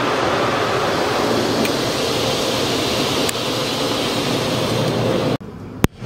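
Automatic car wash running, heard from inside the car: a steady, loud rushing of water jets and machinery against the body and windows. It cuts off abruptly about five seconds in, followed by a single sharp click.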